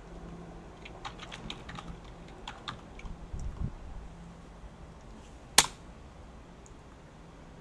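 Computer keyboard typing: a quick run of keystrokes, then a single much louder keystroke, the Enter key, about two seconds later.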